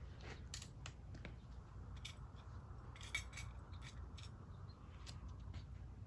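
Faint scattered metallic clicks and handling noise from a Crosman 1377 .177 pellet pistol being worked between shots, with a small cluster of clicks about three seconds in.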